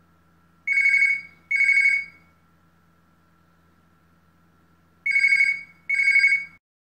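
Electronic ringer of a Telecom Italia VoIP videophone (Urmet TLC model) ringing in double rings: two short rings, a pause of about three seconds, then two more.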